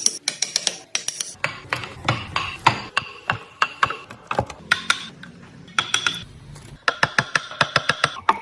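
Rapid, irregular series of sharp taps and clicks of hard objects striking, some leaving a short high ring, with a faster run of them near the end.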